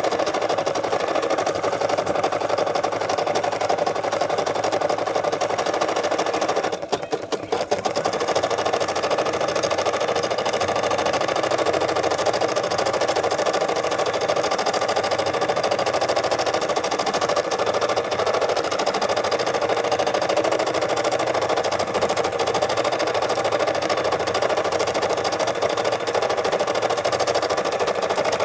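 Brother SE600 computerized embroidery machine sewing out a design: a fast, steady needle chatter as the hoop carriage moves. It breaks off briefly about seven seconds in, then carries on.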